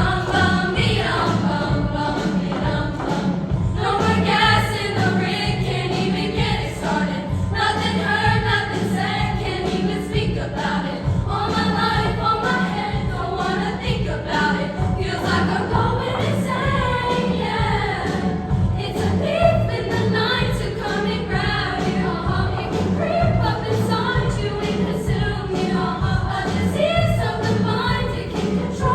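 Girls' junior high choir singing, many voices together with a steady low part underneath.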